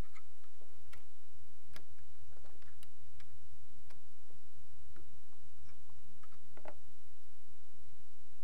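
Irregular light clicks and ticks from handling the PT-2 telescopic buttstock as its length lock is pressed and unscrewed, about a dozen over several seconds, over a steady low hum.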